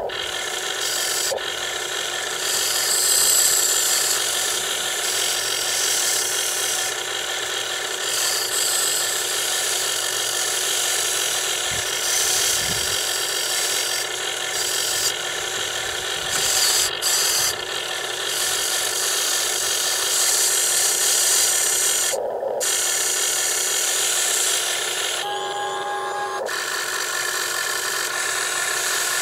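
Huina RC wheel excavator's small electric motors and plastic gearboxes whirring as the boom, arm and bucket move and the upper body slews, the sound shifting and briefly stopping as one function ends and another starts.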